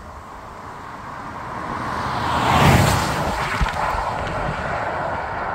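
Volvo EX40 Twin Motor electric SUV driving past, its tyre and wind noise swelling to a peak about two and a half seconds in, then easing off.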